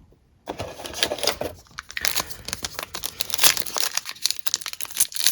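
Trading-card pack wrapper crinkling and tearing as it is opened by hand: dense, irregular crackling that starts about half a second in.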